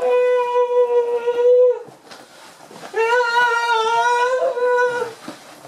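A man wailing in two long, held cries on a steady pitch, the second wavering slightly, with a short pause between them.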